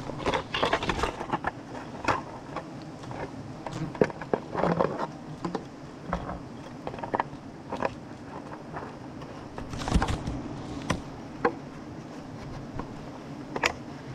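Wild honeybees buzzing in a steady hum around their comb, under frequent irregular rustles, clicks and snaps of close handling among branches and a plastic bottle during a honey harvest.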